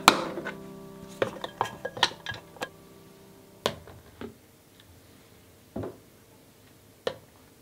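Glass food storage containers with clip-lock lids being closed and stacked: a quick run of sharp clicks as the lid flaps snap down, then single knocks of glass set on glass and on the counter. Background music fades out over the first few seconds.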